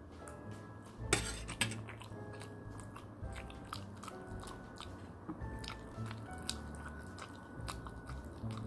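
Close-miked biting and chewing of food, a string of sharp crunchy bites and mouth clicks, the loudest about a second in, over quiet background music.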